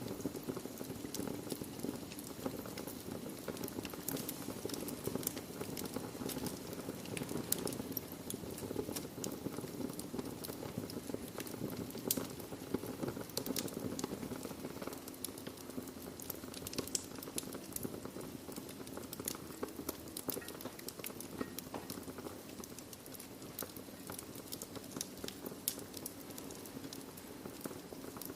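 Wood fire burning in a fireplace: a steady low rush of flames with irregular sharp crackles and pops throughout.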